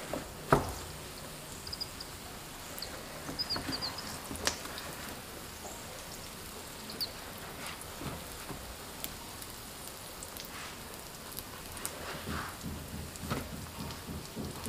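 Chive pockets sizzling in hot oil in an electric griddle pan as they are turned over, a steady quiet sizzle with small crackles and light knocks, the sharpest knock about half a second in.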